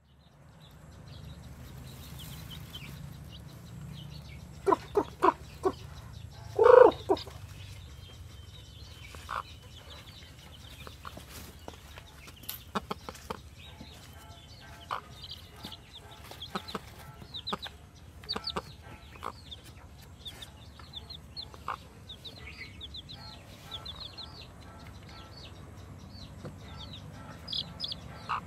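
Broody hen clucking: four short clucks about five seconds in, then one louder, longer call. Newly hatched chicks peep in short high cheeps from about halfway on, more often near the end.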